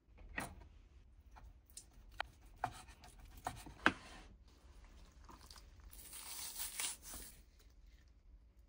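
Napa cabbage kimchi handled and torn apart by hand in a plastic food container. A few light clicks and knocks come in the first four seconds, then a longer tearing, rustling sound comes about six to seven seconds in.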